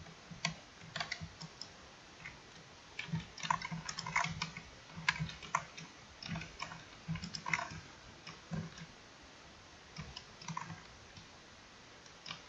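Computer keyboard and mouse clicking as someone works at a computer: irregular keystrokes and clicks in short clusters with brief pauses between.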